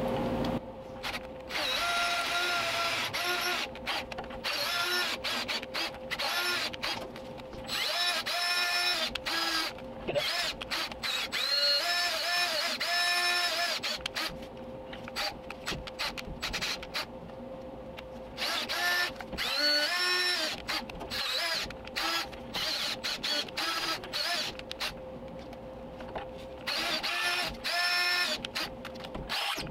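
Power drill spinning a long carbide burr to cut out the remains of a rusted-in broken stud in a steel shock mount. It runs in repeated irregular bursts, the motor's whine rising and falling as the trigger is eased on and off.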